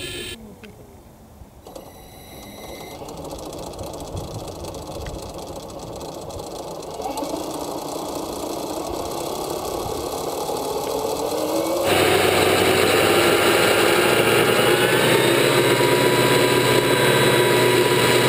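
Engine of a quarter-scale Vario radio-controlled Ecureuil helicopter starting and running up. The sound grows steadily louder and rises in pitch as the rotor spools up, with a sharp jump in loudness about twelve seconds in.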